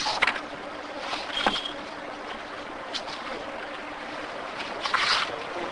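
Steady room hiss with a few short rustles and clicks, the longest near the end.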